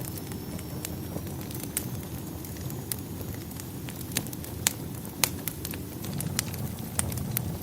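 Wood fire crackling in a fireplace: irregular sharp pops and snaps, a few of them louder, over a steady low rumble.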